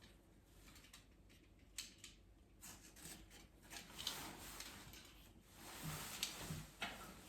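Faint rustling and scraping as a sheet of fiberglass wall covering is handled against the wall, with a few light clicks in the first half.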